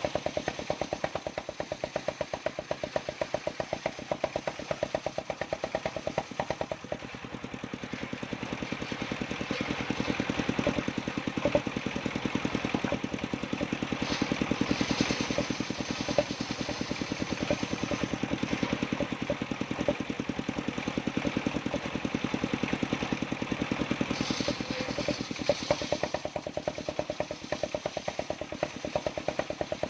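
Engine of a mobile circular-saw rig running steadily with an even, rapid beat. It gets a little louder in the middle, and twice a brief higher hiss joins it.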